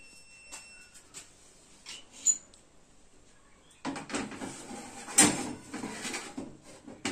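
Metal baking tray being slid onto the rack of a countertop electric oven, scraping and clattering, with a loud knock a little past five seconds in. Before that there is a single sharp click a little over two seconds in.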